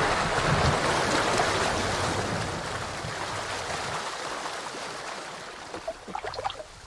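Rushing water that fades away over several seconds, with a few small bubbly pops near the end.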